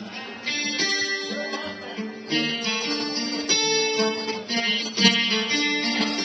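Guitar picking the opening notes of a blues song, played live in a series of plucked, ringing notes.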